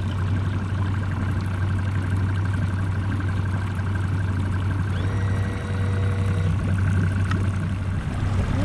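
Fishing boat's outboard motor running steadily while the boat is under way, a loud even drone.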